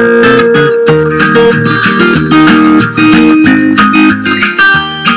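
Recorded guitar music played back from an uploaded music file: plucked guitar notes over a bass line, loud and steady.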